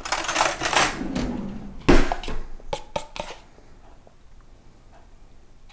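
A metal spoon scraping and clinking in a plastic dairy tub while thick dairy is scooped out, with one sharp knock about two seconds in and a few lighter clicks after it, then little sound.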